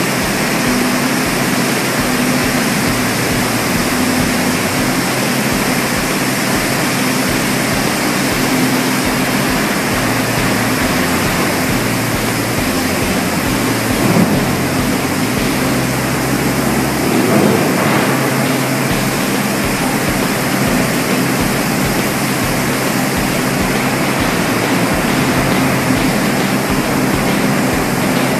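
Steady, loud industrial roar of heavy steelworks machinery, with a low hum held underneath.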